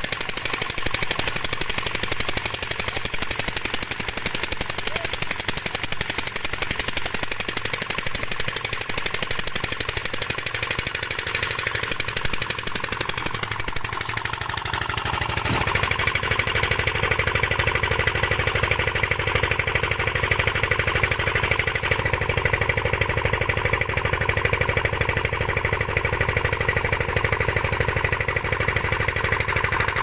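Engine of a site concrete mixer running steadily with a rapid, even knocking beat, its tone shifting about halfway through.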